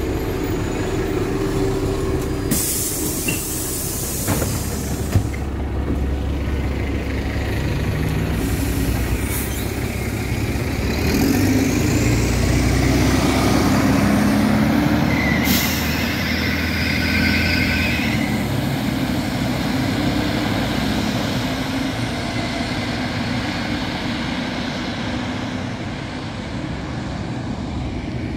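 Inside a LiAZ-5293.60 city bus: the engine and running noise, with sharp hisses of compressed air from the pneumatic brakes a few seconds in and again about halfway through.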